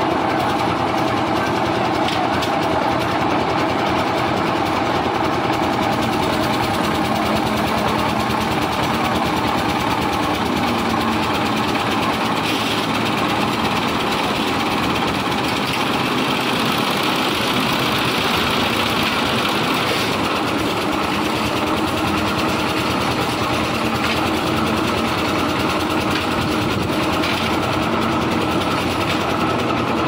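Engine-driven lift concrete mixer running steadily, a continuous mechanical drone with a few light clanks.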